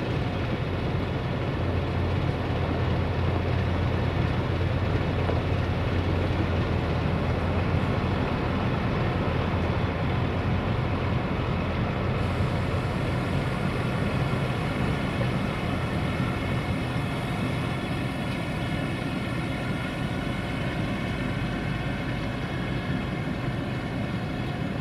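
DAF XF truck's diesel engine running, a deep steady hum. About halfway through the sound changes to a thinner engine note that shifts a little in pitch as the truck pulls away.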